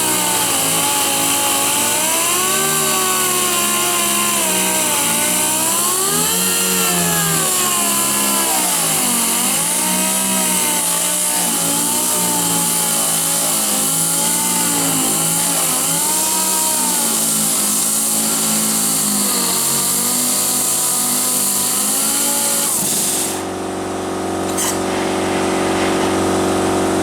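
Air-powered dual-action (DA) sander stripping paint off a steel tailgate panel, with a loud air hiss and a motor pitch that rises and falls as it is pressed and moved across the metal. It stops about 23 seconds in, leaving a steady, even-pitched hum.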